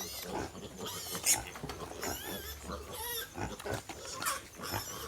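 Native piglets squealing repeatedly in short, high-pitched cries as they crowd the sow to suckle; piglets scream like this when they reach a teat that is not their own.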